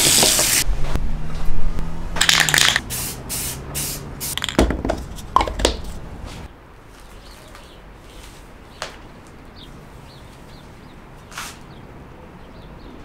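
Water running from a tap into a stainless-steel sink, then a quick series of short hisses from an aerosol spray can of primer paint. After about six and a half seconds only faint room tone with a click or two remains.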